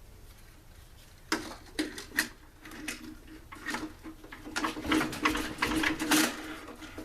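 Stihl SR 420 backpack blower's two-stroke engine being turned over by hand for a spark check, a run of clicks and whirring that starts about a second in and gets busier toward the end; the engine does not fire.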